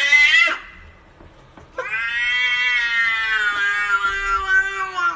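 Cats meowing and yowling. A short cry rises in pitch and breaks off about half a second in. Then, a little under two seconds in, one long drawn-out yowl sinks slightly in pitch and lasts over three seconds.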